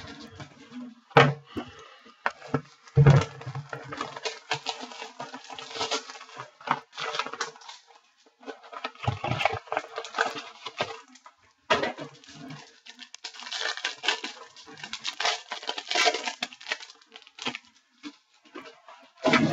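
Hands handling trading cards and their packaging on a tabletop: irregular rustling and crinkling, with a few sharp knocks as things are set down, the loudest about a second in and about three seconds in.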